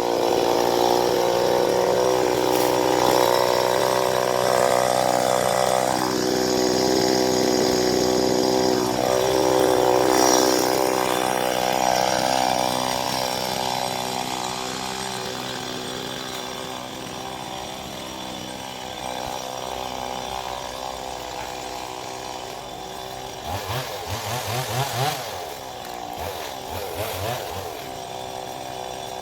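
Two-stroke chainsaw running hard while cutting a coconut palm, its pitch dipping and recovering a few times in the first ten seconds. It grows quieter after that, with a few low throbbing pulses near the end.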